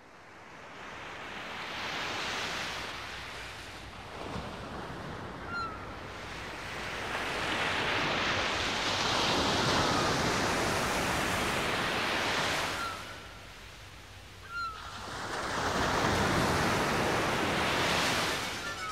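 Ocean surf washing in and out in slow swells, each building and fading over several seconds, with a lull about thirteen seconds in. A few faint short gliding chirps sit above the wash.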